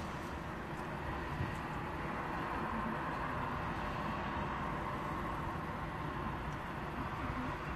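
Steady outdoor background noise: wind buffeting the phone's microphone over the hum of distant road traffic.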